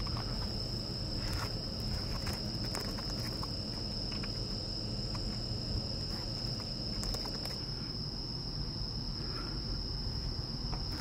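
A steady, high-pitched insect trill, like crickets, over a low background rumble, with a few faint clicks here and there.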